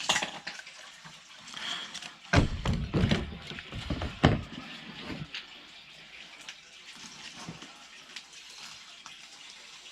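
Water hissing and spraying out of the seam of a leaking sump pump check valve. A few loud knocks and clunks come about two to four seconds in.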